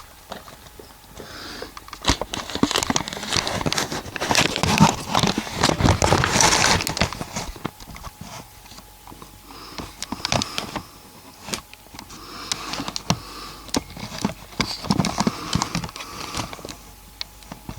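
Irregular rustling and crinkling close to the microphone, with many sharp clicks and crackles, in two busier spells, mixed with sniffing breaths.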